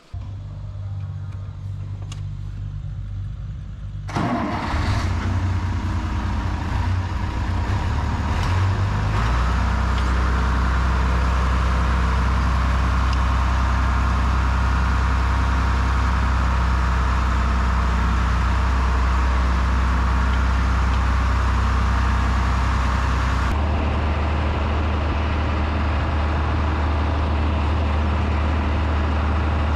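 Farm tractor engine running, louder and noisier from about four seconds in as the tractor gets under way. From about nine seconds on it settles into a lower, steady, louder note as the tractor is driven along.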